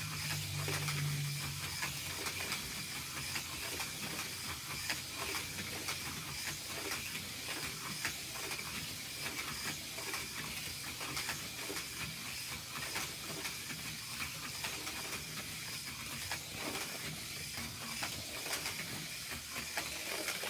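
Hot Wheels Speed Chargers battery-powered toy car running laps on plastic track: a steady high whir from its small electric motor, with faint ticks as it runs over the track.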